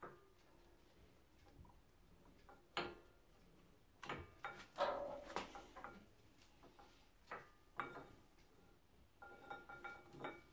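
Faint metallic clicks, scrapes and knocks of a sprung brake pad retaining clip being worked onto a Classic Mini front brake caliper, the clip fiddly and reluctant to sit in place. The sounds come as scattered separate knocks, with a short run of small ringing clinks near the end.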